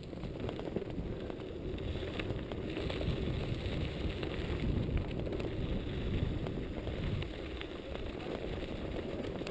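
Mountain bike rolling down a dirt and gravel trail: a steady rumble of tyres on loose ground with wind buffeting the camera microphone, and frequent small clicks and rattles.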